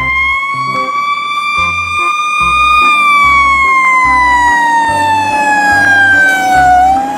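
Fire truck siren wailing: one long tone that climbs for the first few seconds, falls slowly, and starts climbing again near the end. A low beat of background music runs underneath.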